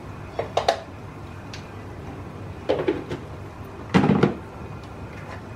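A few short knocks and clatters of kitchen things being handled off to the side, about four in all, the loudest about four seconds in.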